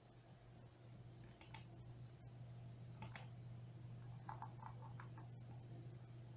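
Faint clicks at the computer as the presentation slide is advanced: a pair of sharp clicks about a second and a half in, another pair about three seconds in, then a run of lighter ticks, over a steady low hum.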